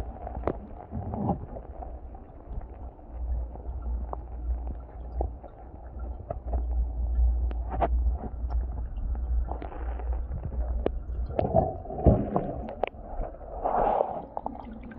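Fish-room background noise: a low steady rumble with scattered small clicks and knocks and a few brief swells of indistinct noise.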